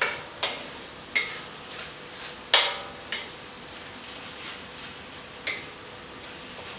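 A spatula knocking and scraping against a wok while stirring beef in bubbling sauce: about six sharp clinks, a few with a brief ring, the loudest about two and a half seconds in, over a steady low hiss of the boiling sauce.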